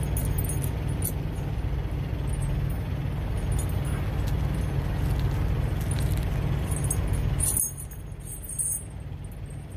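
Steel tire chains clinking and jangling as their hooks are undone on a semi truck's dual tires, over a steady low engine hum. The hum drops a little near the end, where a run of bright metallic clinks is loudest.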